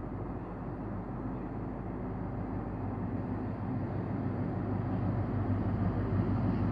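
Class 43 HST power car 43169 approaching a station platform, its diesel engine drone growing steadily louder as it comes closer.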